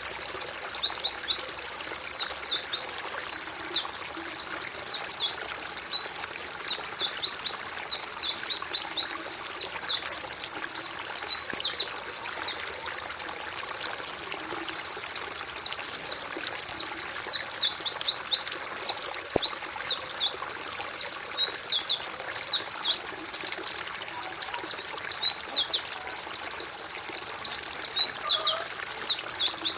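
White-eyes (pleci) singing continuously: many quick, high chirps that sweep downward and overlap one another, over a steady trickle of water, as in a bird-tutoring recording.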